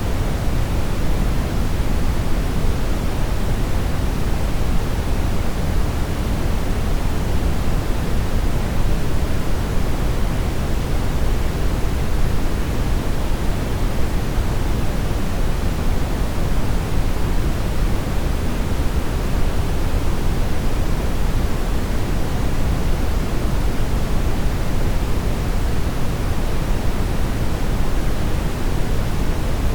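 Television static: a steady, loud hiss of noise with no tone or change in it, heavier in the low end. It is the sound of a TV receiving no signal.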